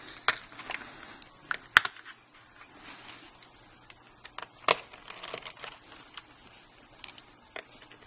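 Light clicks and taps of hand work on an opened MacBook Pro: a plastic screw tray being set down and a small screwdriver and parts being handled. A few sharper clicks stand out, the loudest about two seconds in.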